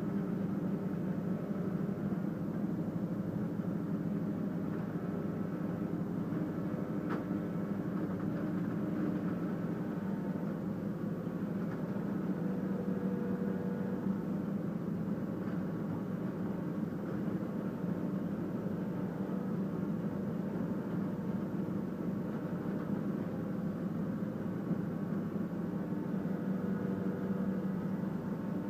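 Mobile Cambio 45 log debarker running with a steady machine hum and no marked changes.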